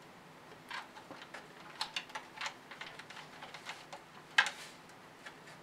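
Irregular light clicks and taps of hard plastic as wire connectors are plugged together and parts handled on an RC snow blower chassis, with one sharper click about four and a half seconds in.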